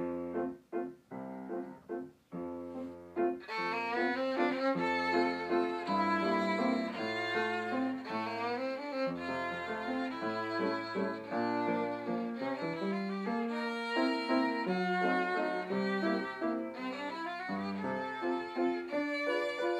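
Background music led by a violin, with a bass line and some piano; it starts with short separate notes and fills out after about three seconds.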